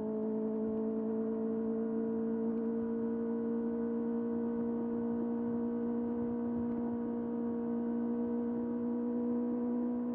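Kawasaki ZX-6R's inline-four engine running at steady high revs under way, its pitch creeping slowly up.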